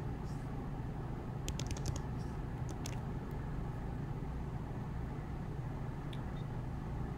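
Calculator keys being tapped: a quick run of about half a dozen clicks, then one more click near the end, over a steady low room hum.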